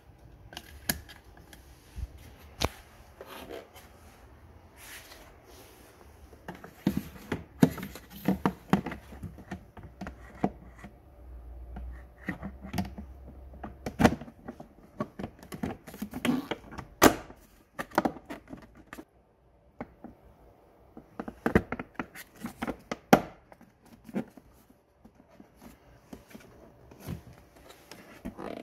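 Hard plastic clicking, knocking and snapping as a battery terminal cover and the plastic covers around the car battery are handled and fitted. The clicks come irregularly, in several short flurries.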